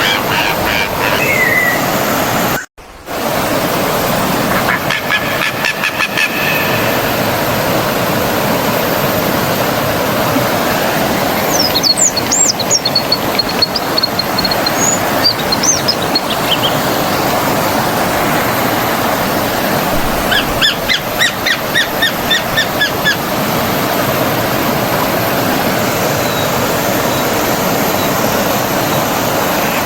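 Stream water flowing steadily, with birds calling over it in repeated bursts of chirps, including a high trill about twelve seconds in and another run of calls about twenty seconds in. The sound cuts out for a moment near three seconds in.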